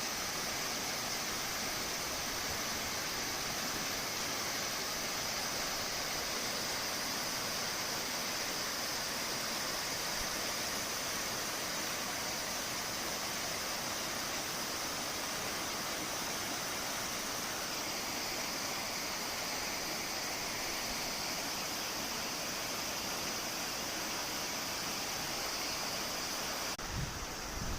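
Flowing water rushing steadily, with a hiss heard most in the upper range. About a second before the end the sound changes, and a few low wind thumps hit the microphone.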